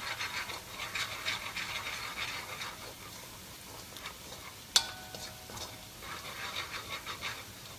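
A utensil stirring and scraping minced garlic frying in oil in a stainless steel wok, in quick repeated strokes over a light sizzle; the garlic is stirred constantly so it browns evenly without burning. About five seconds in, the utensil knocks the wok once with a short metallic ring.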